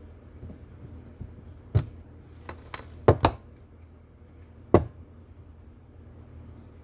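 Small metal carburetor parts clinking and knocking against each other and the work surface during hand reassembly. There are about six sharp clinks, with a cluster around three seconds in and one more near five seconds.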